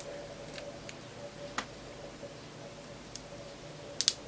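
Thin plastic screen-protector film being peeled off a handheld multimeter's display: scattered faint ticks and crackles, with two sharp clicks close together near the end.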